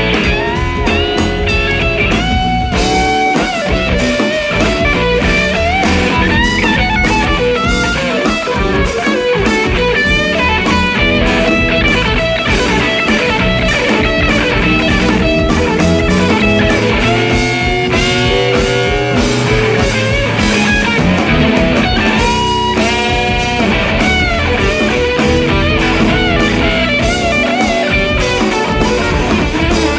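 Live electric guitar playing a bluesy rock lead over a drum kit, with bent notes and, about two-thirds of the way through, a fast wavering trill high up the neck. The guitar is a Stratocaster-style instrument played through a pedalboard and a Fender combo amp.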